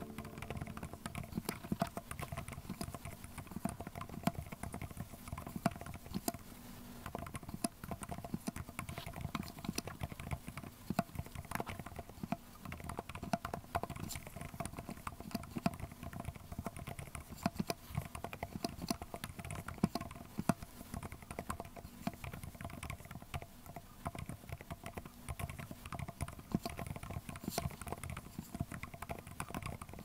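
Typing on a Chosfox CF81 mechanical keyboard fitted with Summer Lime silent linear switches: a continuous, irregular run of keystrokes.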